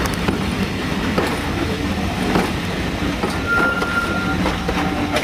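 A train of passenger coaches rolling past with a steady low rumble, the wheels clicking over rail joints about once a second. A brief high, steady squeal sounds a little past halfway.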